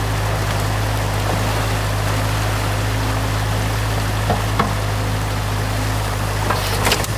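Water rushing through a breach in a beaver dam over the steady idle-to-working run of a New Holland mini excavator's diesel engine. A few short knocks and cracks come in the second half, near the end most of all.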